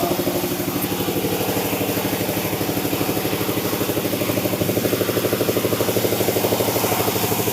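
Sawmill engine running steadily with a fast, even throb.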